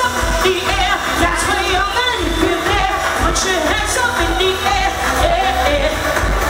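A woman singing a pop song into a microphone through a PA, over loud amplified backing music with a steady low beat.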